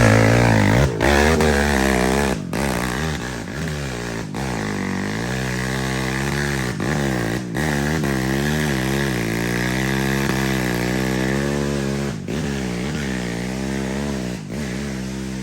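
Dirt bike engine revving, its pitch rising and falling again and again as it is ridden, loudest at the start.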